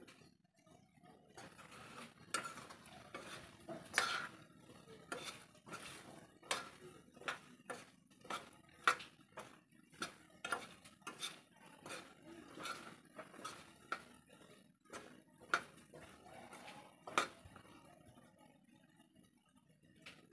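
Metal spoon stirring in a metal wok, clinking and scraping against the pan in a run of irregular knocks about one or two a second, which stop a few seconds before the end.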